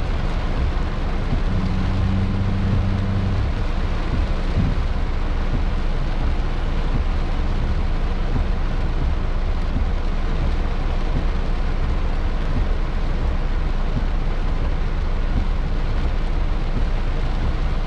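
Heavy rain pouring down on a car, heard from inside the cabin as a steady, dense hiss with a low rumble underneath. A low engine-like hum sounds for the first few seconds.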